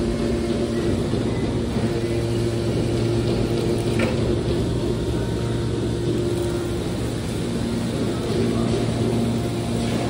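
Hydraulic scrap metal baler's power unit running with a steady mechanical hum as its ram pushes a compressed bale of metal scrap out of the chamber. A short sharp click about four seconds in.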